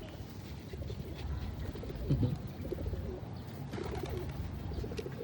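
Pigeons cooing: low, wavering coos about two seconds in and again about four seconds in.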